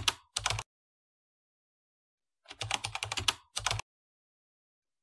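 Keyboard typing sound effect: quick runs of key clicks, a short run at the start and a longer one of about a second in the middle, with silence between.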